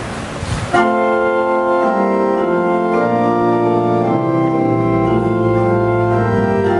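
Organ playing sustained chords, the introduction to a hymn, starting about a second in with the chords changing every second or two.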